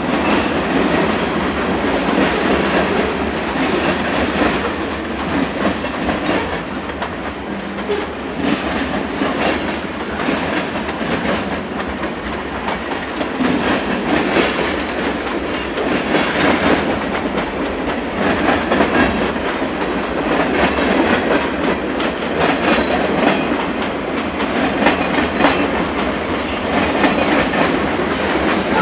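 Freight cars of a Norfolk Southern freight train rolling past: a steady rumble and rattle of steel wheels on rail, with clickety-clack as the wheels cross rail joints.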